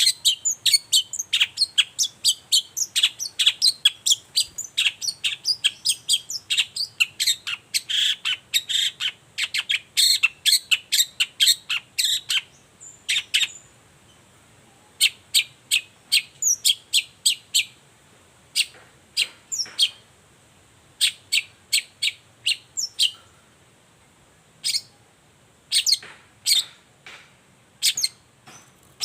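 Long-tailed shrike (cendet) singing a rapid run of sharp, high chirps, densely packed for about the first twelve seconds. After that the calls come in shorter bursts separated by pauses.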